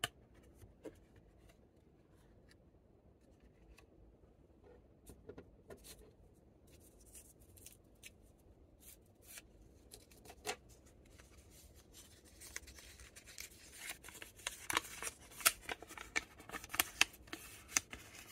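Paper candy packaging and foil wrappers being handled: scattered faint rustles and clicks at first, then dense crinkling over the last few seconds.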